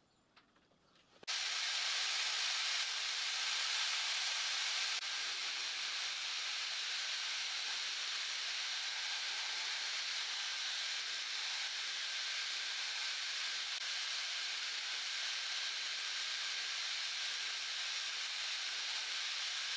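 High-speed engraving spindle running while a pointed cutter marks graduation lines in metal: a steady hiss that starts suddenly about a second in.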